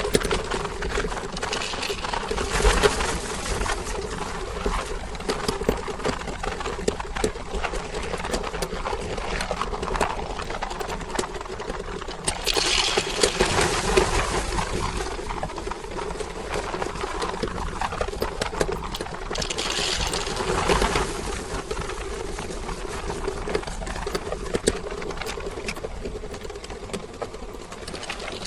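Electric meat grinder motor running with a steady hum while candy is fed through it, crackling throughout, with louder crunching three times.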